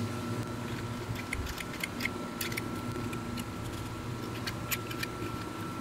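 Number 11 hobby knife blade scraping flash off the edge of a plastic model wing half: scattered short, irregular scratchy ticks over the steady whir of an air conditioner.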